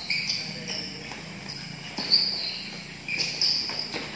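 Futsal shoes squeaking on the court in short, irregular squeals, with a few knocks of the ball being kicked; the loudest knock comes about two seconds in.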